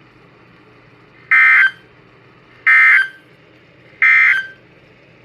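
Three short bursts of warbling digital data tones, evenly spaced about a second and a half apart, over a faint steady hum: the EAS/SAME end-of-message code that closes a NOAA Weather Radio special marine warning, played by a Radioshack TRC-519 weather radio.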